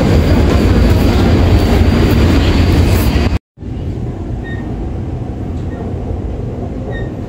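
Airport MRT train running, heard from inside the passenger car: a steady low rumble of the moving train. It breaks off abruptly about three and a half seconds in and comes back as a quieter, steady hum.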